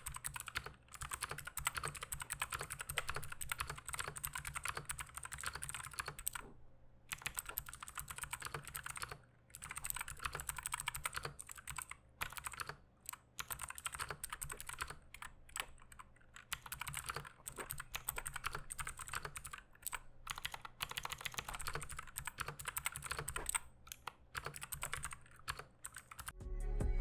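Fast typing on a Gamakay MK61 60% keyboard with Gateron optical blue switches: rapid clicky key strokes, the loudest of the switch options, with a few brief pauses.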